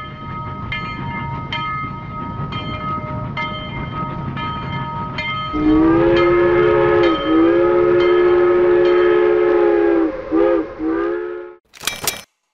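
Train rolling with a regular clickety-clack of wheels over rail joints under a steady tone. About five and a half seconds in, a loud multi-note train horn sounds a long blast, then several short breaks and toots. A short, sharp burst of noise near the end.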